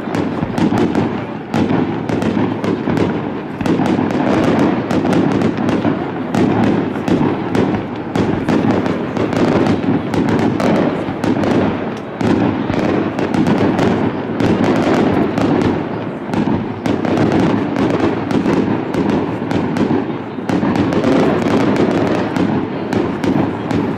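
Aerial fireworks going off in a dense, unbroken barrage: many sharp bangs and cracks every second, overlapping one another.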